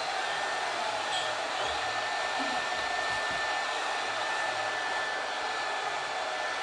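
Applause from a large audience, the clapping blended into a dense, steady wash, with a couple of faint whistles about a second in.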